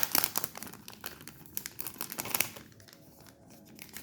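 Plastic foil trading-card pack wrapper crinkling and tearing as it is opened, the crackling dying down after about two and a half seconds into quieter handling.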